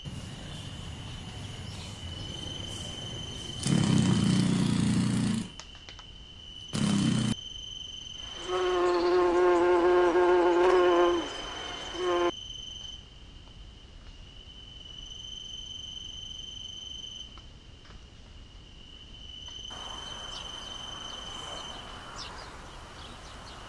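Insect sounds: a steady, high, cricket-like chirring tone runs through most of it. Over it come buzzing bursts: a loud low buzz about four seconds in, a brief one around seven seconds, and a steady pitched flying-insect buzz from about eight and a half to eleven seconds.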